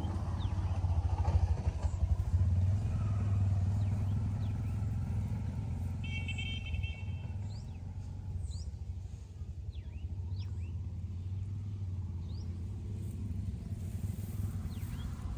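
An engine running steadily with a low hum, loudest in the first few seconds and easing off after, with short high bird chirps over it.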